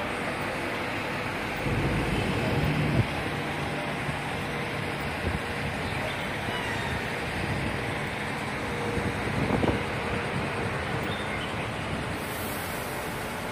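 City street traffic: a steady hum of passing vehicles, with a louder engine going by about two seconds in and another smaller rise near ten seconds.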